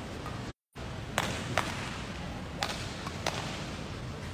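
Badminton racket strikes on a shuttlecock: four sharp hits spread over about two seconds against a steady hall background. Just before the hits the sound cuts out completely for a moment.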